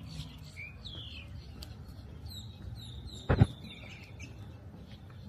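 Small birds chirping and calling, with quick down-slurred notes and a run of repeated high notes, over a steady low outdoor rumble. A single brief low thump a little past the middle is the loudest sound.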